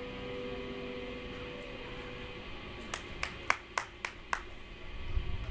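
An amplified electric guitar note rings out and fades away over the first two seconds, followed by six quick hand claps, about three a second. A low rumble comes up near the end.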